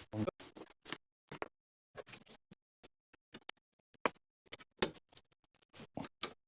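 Scattered small clicks, taps and scrapes of hands handling seat bolts and washers, with a few sharper clicks near the middle.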